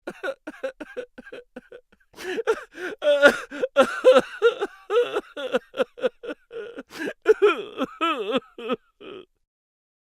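Cartoon character voice effect: a rapid string of short vocal syllables, about five or six a second, quieter for the first two seconds, then louder, with a wobbling pitch near the end before it stops.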